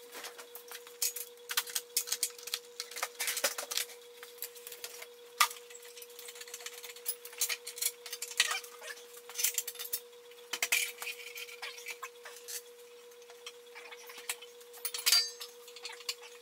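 Hand tools and loose metal parts clinking, tapping and knocking against the steel frame and bench as a treadmill is taken apart, at irregular intervals and sometimes several a second, over a steady hum.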